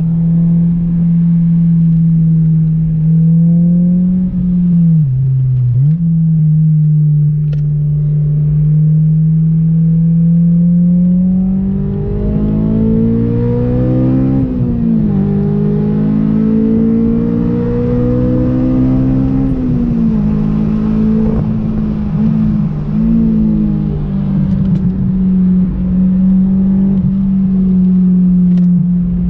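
Honda S2000's four-cylinder engine running hard, heard from inside the cabin. It mostly holds a steady pitch, dips briefly about five seconds in, and rises and falls through the middle as the revs change.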